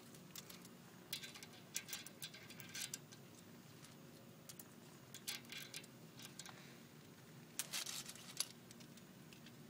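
Faint, scattered light clicks and clinks of small metal tools and parts being handled, with a slightly louder cluster about eight seconds in.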